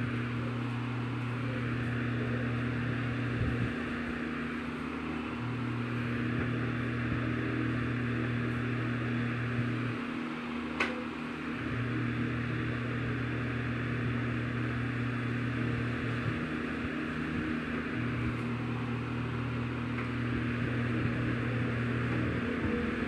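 A steady machine hum over a hiss. The lower part of the hum drops out for a moment every few seconds, and there is a single sharp click about eleven seconds in.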